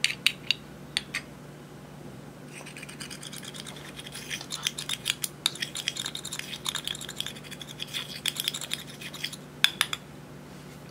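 Close-up scratching and crackling from makeup and slime being worked by hand, set between a few sharp clicks at the start and two more near the end.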